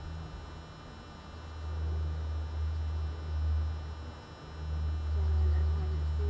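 Low rumble that swells and fades twice.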